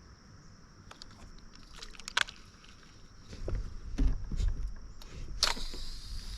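Handling noise in a small fishing boat: scattered clicks and knocks with a few low thumps in the middle, over a steady high buzz of insects.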